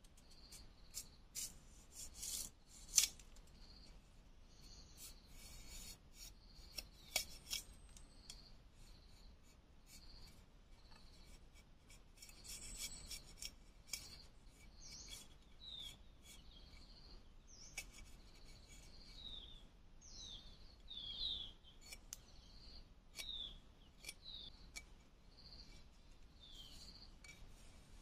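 A metal blade scraping and shaving a bamboo stick: rasping strokes and sharp clicks, the loudest in the first eight seconds. Birds chirp in the background, one repeating a short high note about once a second.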